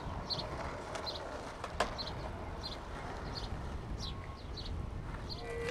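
A small bird chirping repeatedly, short high downward chirps roughly every three-quarters of a second, over a low rumble of outdoor background noise. One sharp knock sounds a little under two seconds in.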